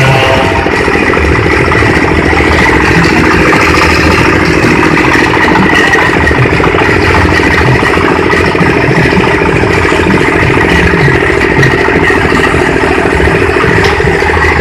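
Livestock feed chopper machine running steadily, with a constant drone and irregular rattling and clatter.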